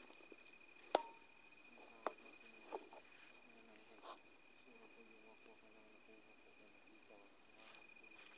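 Steady chorus of night insects, crickets trilling at a high, even pitch. Three sharp clicks cut through about one, two and nearly three seconds in, the first the loudest.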